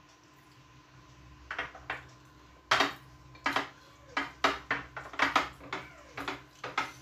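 Glass plates and bowls clinking and tapping as rice and chicken are eaten by hand: a dozen or so sharp, irregular clicks starting about a second and a half in.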